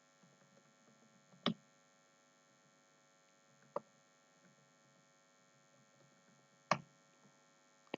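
Faint steady electrical mains hum with four short, sharp clicks spread across the pause: one about a second and a half in, one near the middle and two near the end.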